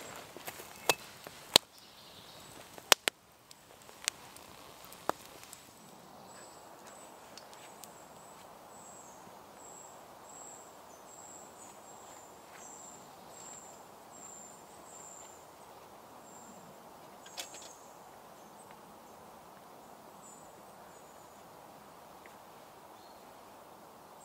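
Axe strikes on wood: a handful of sharp knocks over the first five seconds. Then quiet woodland background with a run of high, evenly repeated chirps lasting several seconds.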